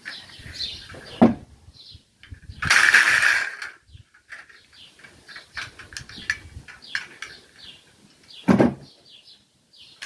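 Wire grill basket and a spring-loaded wooden rat trap handled on stone paving while the trap is being set: light metal clicks and rattles, a rasping scrape of about a second around the third second, and two sharp knocks, one about a second in and one near the end.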